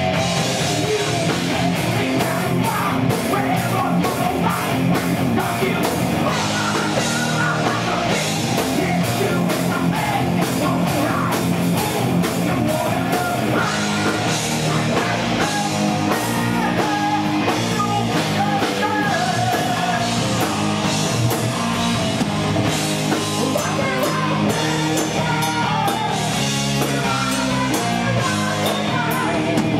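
Live heavy metal band playing: electric guitar, bass guitar and a drum kit, with a singer belting into a microphone.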